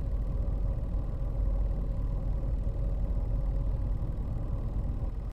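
Steady low rumbling noise with a faint hum that cuts off suddenly near the end.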